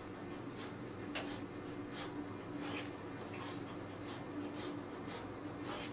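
Montblanc No. 14 fountain pen's flexible steel-free gold nib scratching across paper in cursive writing, with soft irregular strokes a little under two a second, over a faint steady hum.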